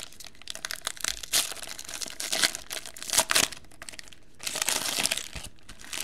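Foil wrapper of a Panini Playbook football card pack being torn open and crumpled by hand: irregular crinkling and tearing in bursts, the densest stretch a little past halfway, dying away near the end.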